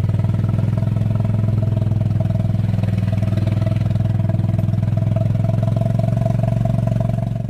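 Small engine running steadily at one speed, with an even, rapid firing rhythm.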